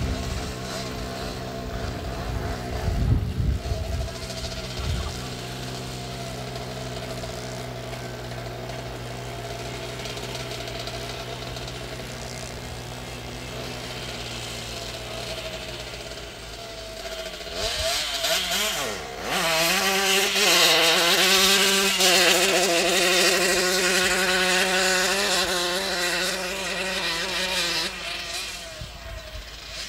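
Vintage moped engines: one runs steadily at low revs, with a few dull low thumps about three seconds in. About seventeen seconds in, an engine revs up and down, then runs loud at high revs for several seconds and fades near the end.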